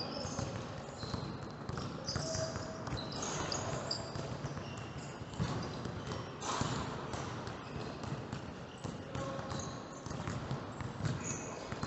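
Basketballs bouncing on a gym court floor: irregular thumps from several balls being dribbled, with short high shoe squeaks in between.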